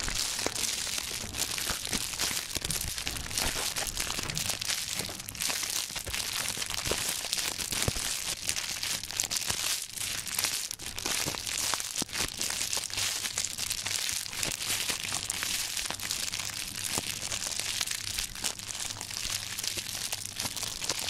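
Fire crackling steadily: a dense crackle of many small pops over a hiss.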